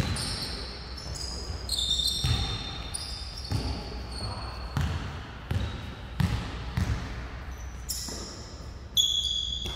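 Basketball bouncing on a sports hall floor as players dribble and pass, irregular low thumps that echo in the large hall, mixed with short high squeaks of sneakers on the court.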